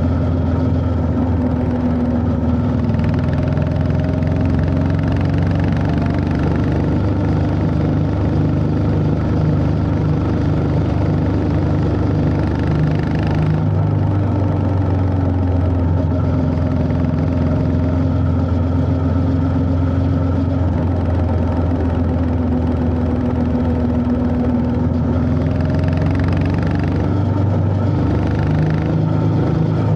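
The air-cooled single-cylinder engine of a Honda CB350 H'ness motorcycle runs steadily while the bike is ridden. About halfway through, the engine note breaks briefly and steps up in pitch, then slowly falls again.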